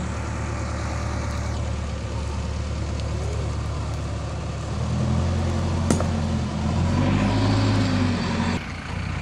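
JCB backhoe loader's diesel engine running steadily. From about five seconds in it grows louder, its pitch rising and falling as the backhoe arm digs, then it eases back near the end. There is a sharp knock about six seconds in.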